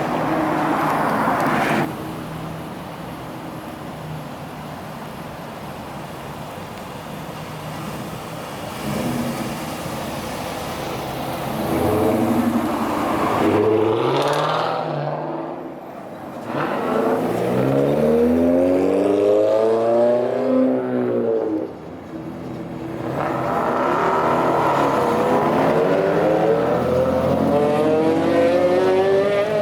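Car engines: a steady low engine note, then an engine revving up hard in rising sweeps, its pitch dropping at each gear change, accelerating through the gears. Another long rising pull comes near the end.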